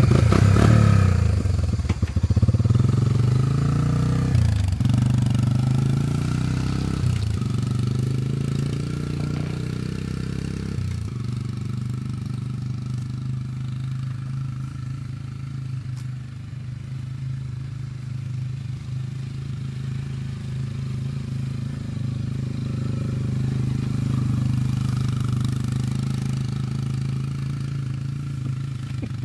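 Honda TRX300 ATV's single-cylinder four-stroke engine pulling away under throttle while towing a rider on a board sled. It is loudest as it sets off, dips briefly a few times in the first ten seconds, then runs steadier and fainter as the quad drives around the lawn.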